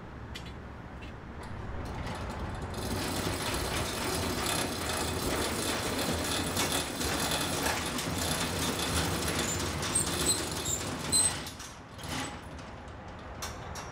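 Roll-down metal security shutter being lowered over a storefront, a long steady metallic rattle that ends with a clank as it reaches the ground about 11 seconds in.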